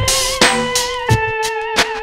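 Background music: a sustained lead note, slid up into and held with a wavering vibrato, over a drum beat with evenly spaced hits.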